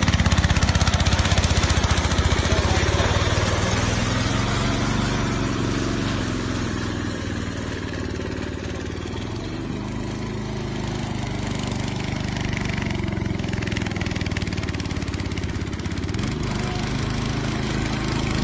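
Racing lawnmower engine running under throttle, loudest at first, then easing to a lower, quieter note through the middle and revving up again near the end.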